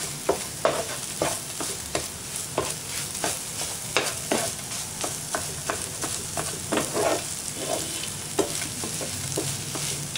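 Wooden spatula scraping and knocking against a frying pan while egg is stirred and scrambled, in short irregular strokes about one or two a second, over a steady sizzle of frying.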